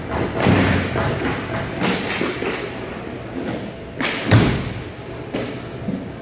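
A series of dull thumps and knocks at uneven intervals, the loudest a little past four seconds in.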